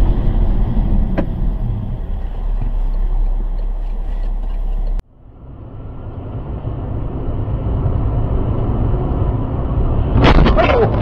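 Car dashcam audio: steady engine and tyre noise heard inside the cabin, which cuts off abruptly about halfway through. A second drive's road noise then builds up, and near the end a crash sets off a burst of sharp bangs and cracks.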